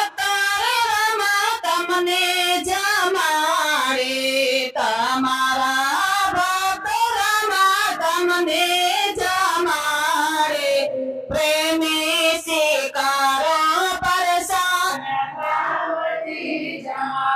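A song with a high voice singing a melody. The held notes bend and waver in pitch, with short breaks between phrases.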